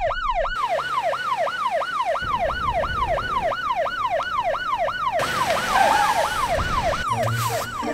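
Electronic emergency siren in a fast yelp pattern: about three quick falling sweeps a second, unbroken, stopping just before the end.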